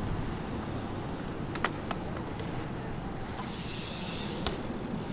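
BMX bike riding a concrete skatepark bowl: a steady rumble of tyres rolling on concrete, with a few sharp clicks and knocks from the bike, the loudest about four and a half seconds in.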